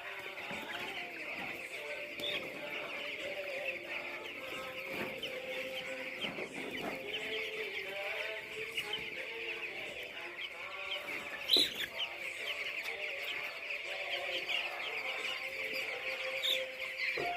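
A flock of broiler chickens calling continuously: a dense chorus of high peeping with many lower clucks mixed in. One sharp knock sounds a little past the middle.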